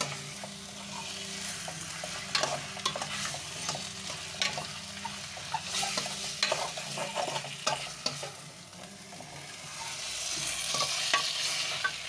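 A metal spoon stirring and scraping chicken pieces through frying masala in a stainless steel pot, with frequent clinks and scrapes over a steady sizzle. The sizzle grows louder about ten seconds in.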